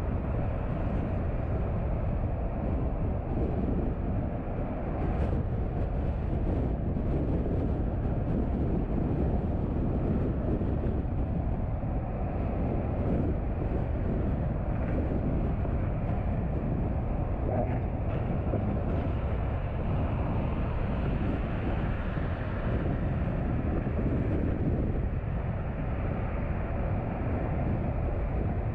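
Car driving at a steady speed: a constant low rumble of road and tyre noise with engine hum.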